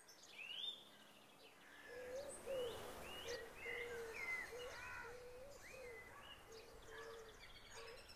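Faint outdoor birdsong: several birds chirping with short rising and falling whistled calls, over a lower run of repeated notes and a light background hiss.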